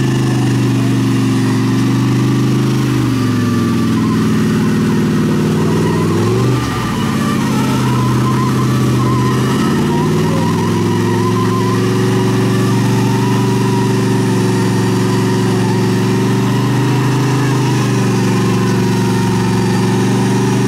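Vehicle engine running hard during the recovery of a Jeep bogged nose-deep in mud. It holds a steady high note whose pitch dips and climbs back several times.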